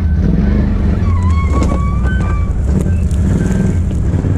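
Can-Am Outlander ATV's V-twin engine running steadily and loudly. A few short, wavering high tones come and go over it around the middle.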